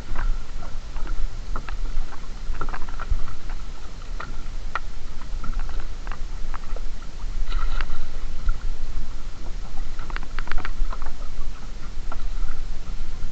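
Fishing net being hauled aboard a small open boat at sea: scattered knocks and clatters over a steady low rumble.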